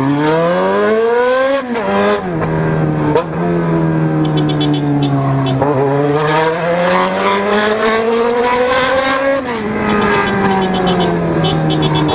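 Motorcycle engine pulling through the gears while riding through traffic: its pitch climbs under throttle, drops sharply at the gear changes, about two seconds in and again near the end, and climbs slowly in between.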